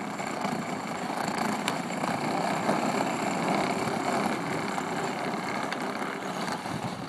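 A battery-powered children's ride-on quad driving on asphalt: its hard plastic wheels rolling and its electric motor whirring make a steady rough noise, which fades slightly near the end as it moves away.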